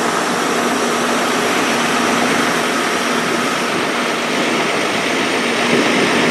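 An engine running steadily at a constant speed: a loud, even noise with a faint steady hum through it.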